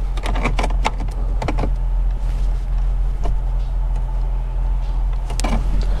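Scattered clicks and scrapes of a clip removal tool prying at the dashboard trim panel and its metal retaining clips, mostly in the first two seconds with a few more near the end, over a steady low hum.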